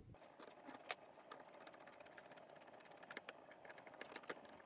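Faint, irregular small clicks and scrapes of a screwdriver turning a screw into the metal front bearing bracket of a fan's PSC motor.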